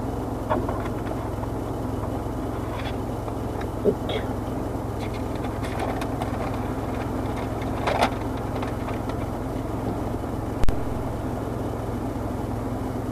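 Steady low hum of a car idling, heard inside the cabin through the open driver's window, with a few faint rustles and taps and one sharp click about ten and a half seconds in.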